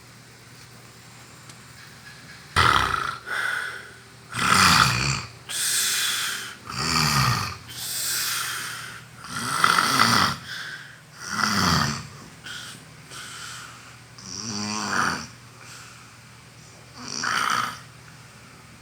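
A person snoring very loudly: a run of about ten harsh, rattling snores, each under a second long, coming every second or so. There is a longer gap before the last two.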